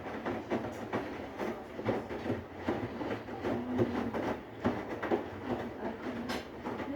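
Siemens varioPerfect iQ500 washing machine washing a load of towels: the drum turns with a steady run of knocks and clatter over a low rumble.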